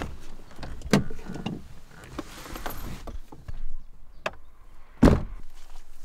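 Door of an old Land Rover Defender being unlatched and opened, with sharp clicks and knocks from the handle and door, then slammed shut with a loud thud about five seconds in.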